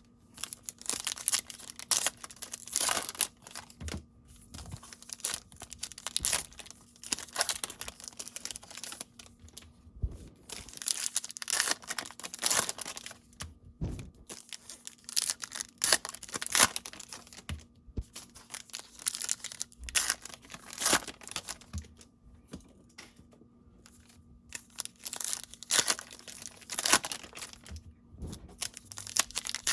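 Cardboard trading-card packs being torn open and the cards handled, in repeated stretches of tearing and rustling broken by short pauses.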